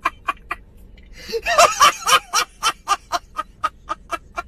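A man laughing hard in a long run of quick, even 'ha' bursts, about five a second, with a louder, higher stretch of laughter about a second and a half in.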